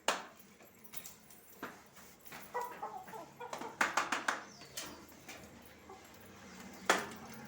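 Young chicks peeping in short calls, among scattered sharp taps and knocks, the loudest at the start and near the end.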